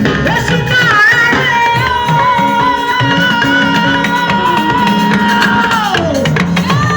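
Gospel band music with drums and guitar under a long held note that slides down about six seconds in.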